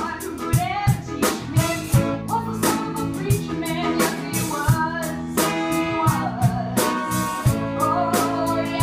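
Live jazz band playing an upbeat tune with a singer, the drums keeping a steady beat.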